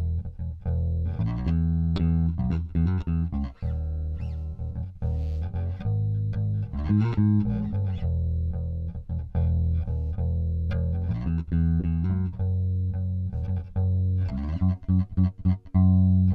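Junior JB100 Jazz-style electric bass, played fingerstyle with both single-coil pickups blended: a steady line of plucked low notes, with a slide about halfway through and a quick run of notes near the end.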